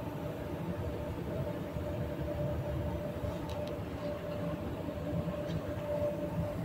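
Paint spray booth's ventilation fans running with a steady low rumble and a faint hum.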